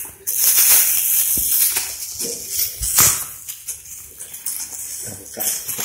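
Thin plastic fruit bag crinkling and rustling close up as it is pulled off a fruit on the branch, in irregular bursts, loudest in the first couple of seconds and again about three seconds in.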